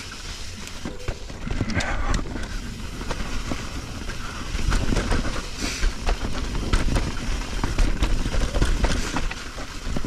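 Mountain bike rolling fast down a dirt trail: a steady rumble of tyres on the ground, with the bike rattling and knocking over bumps many times.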